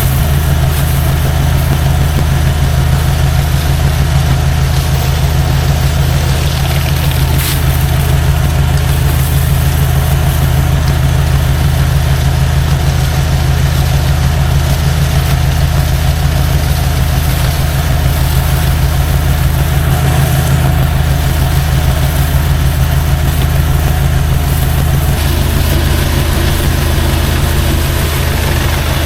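Gas-engine pressure washer running steadily, with a constant hiss of water spray over the low engine drone.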